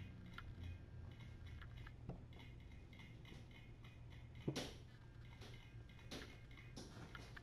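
Faint ticks and scrapes of a kitten's claws and paws against a clear plastic bowl, with one louder knock a little past halfway.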